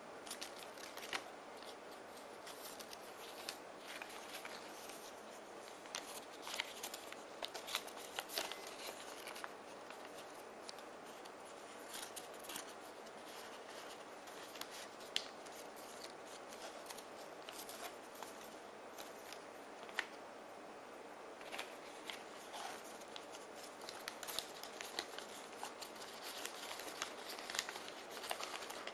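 Folded origami paper modules being handled and slotted together: irregular crisp paper rustles and sharp little clicks, a little busier near the end, over a steady hiss.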